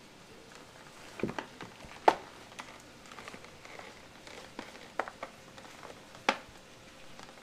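Thin plastic strawberry clamshell crackling and clicking as a cat grabs, rubs against and shoves it across a wooden floor: a handful of sharp clicks, the loudest about two seconds in and another just past six seconds, with softer crinkles between.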